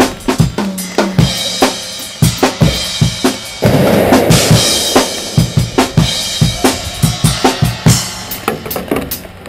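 Background music with a fast, heavy drum beat, and a burst of noise about four seconds in.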